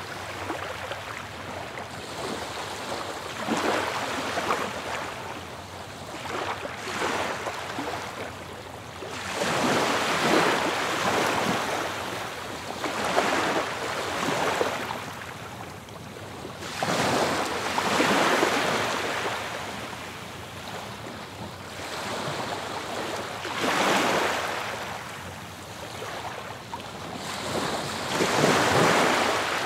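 Ocean waves surging and washing onto a beach, each swell rising and falling away every few seconds.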